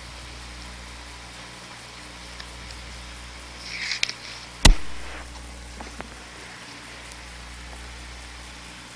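Steady low mains hum and hiss of an old film soundtrack. About four seconds in there is a short crackling rustle, followed by a single sharp click, the loudest sound, and a fainter click a little later.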